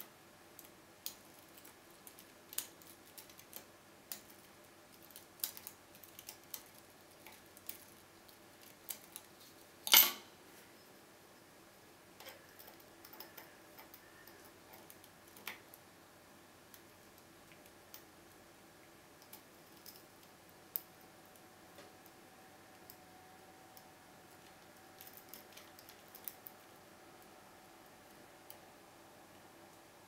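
Small irregular metallic clicks and ticks of a lock pick and tension wrench working the pins inside a Keso 2000 SW euro cylinder, with one sharp, much louder click about ten seconds in.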